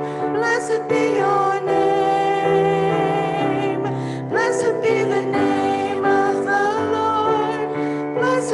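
Church worship team performing a contemporary praise song: a sung melody over instrumental accompaniment, carried through the church room.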